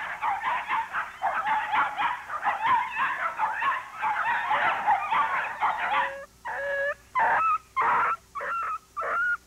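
Dogs yapping and whining in a dense, overlapping jumble, then from about six seconds in a string of short, high whines, each well under half a second, with brief gaps between.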